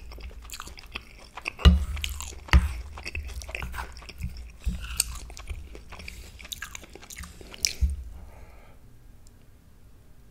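Close-miked chewing and wet mouth sounds of a person eating shrimp gumbo over rice, full of small clicks and smacks. Three dull thumps sound, about two seconds in, just after, and near eight seconds. The last couple of seconds are quieter.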